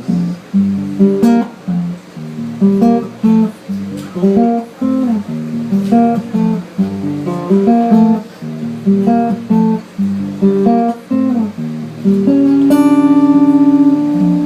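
Acoustic guitar played live, picking single notes in a repeating arpeggio pattern, then ringing out a sustained chord about twelve seconds in.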